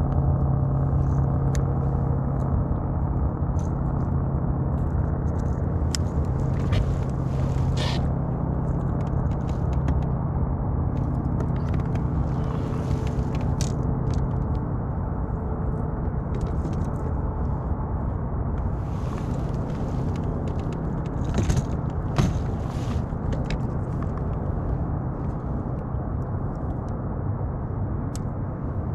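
A steady low mechanical hum, with small clicks and brief scrapes scattered through it.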